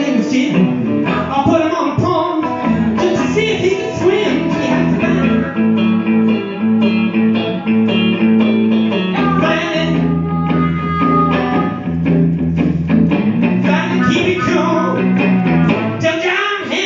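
Live electric blues played on guitars, a steady low note line under busy picked notes.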